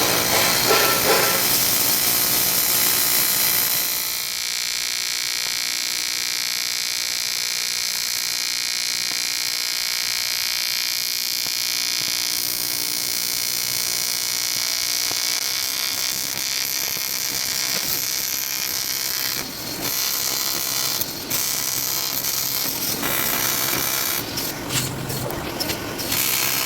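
AC TIG welding arc on an aluminum cylinder head at about 250 amps: a steady, buzzing hiss of fixed pitch as the weld is built up. It breaks off briefly about 19 seconds in and flickers on and off near the end.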